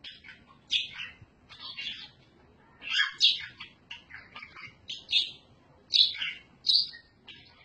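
Pet parrot calling in a series of short, high chirps, about one or two a second.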